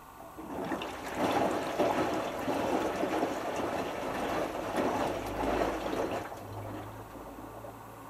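Hotpoint HF8B593 washing machine drum making one slow turn, wet laundry and water sloshing for about six seconds before it dies away, during the cool-down stage of a 90 °C cotton wash. A low hum comes in near the end.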